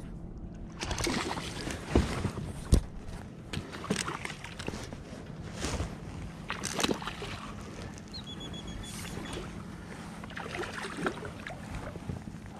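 Water splashing and irregular knocks against a plastic fishing kayak while a hooked smallmouth bass is worked alongside the boat to be netted, with two sharp knocks about two and three seconds in. A short high electronic beep sounds a little past eight seconds.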